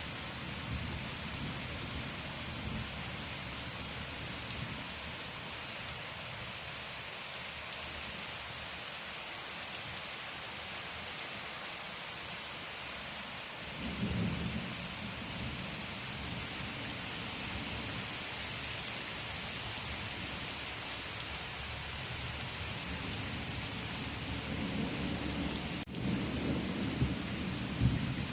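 Steady rain hissing and pattering, with low rolls of thunder rumbling about halfway through and again near the end.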